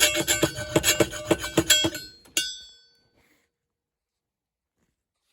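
Rapid metal-on-metal knocks on a heavy brass piece, each one ringing, that stop about two seconds in, followed by one last strike at about two and a half seconds whose ring fades out.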